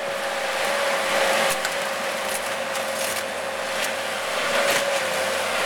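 Excavator running with a steady high whine, with scattered sharp cracks and crunches as it tears into a Mercedes 300D sedan.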